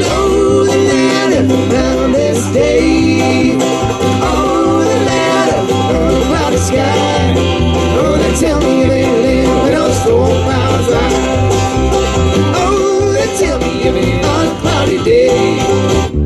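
Live bluegrass band playing: fiddle, acoustic guitar and banjo over upright bass and a steady beat.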